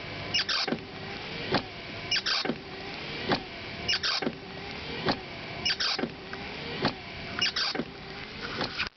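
Car windscreen wipers sweeping back and forth, with a sharp click or knock about every second, often doubled, as each sweep reverses. A rising and falling whine sounds between the knocks. It is an abnormal noise from the base of the passenger-side wiper, at its pivot.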